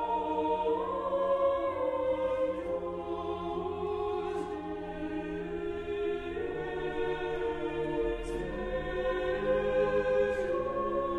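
Background music: slow, sustained choral-sounding chords that change every few seconds.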